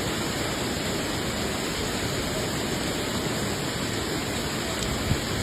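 A steady, even rush of water, with a brief low thump near the end.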